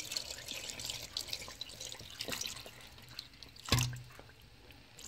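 Water poured into a metal cooking pot of catfish pieces, splashing and trickling for about three seconds, then a single knock a little before four seconds in.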